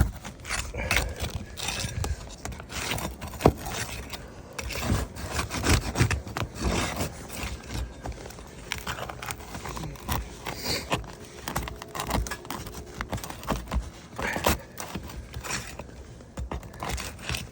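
Steel flat bar scraping and prying under asphalt roof shingles to reach their nails, with irregular scrapes, clicks and knocks. The shingles are brittle and tear as they are lifted, the sign that they fail a repairability test.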